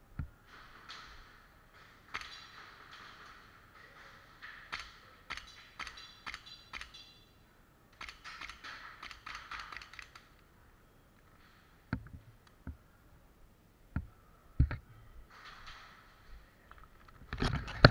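Shuffling footsteps and gear rustling from a moving airsoft player, broken by scattered sharp clicks and a few hard knocks, the loudest cluster near the end.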